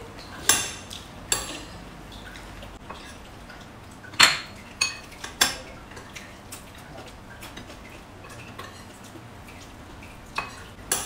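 Metal spoon clinking against a ceramic bowl, several sharp separate clinks with a brief ring. The loudest comes about four seconds in, and two come close together near the end.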